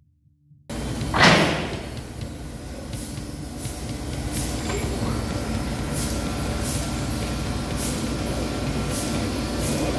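A loud whoosh about a second in, then the steady rumble and hiss of a vacuum lifter's pump running as it holds sheet metal on its suction pads, with short hisses of air recurring every second or so.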